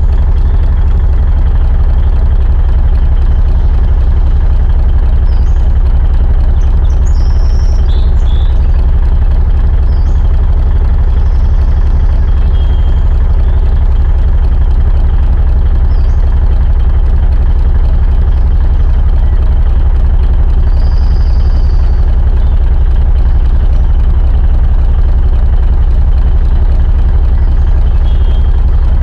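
Diesel truck engine idling steadily, a low, even rumble that holds unchanged throughout.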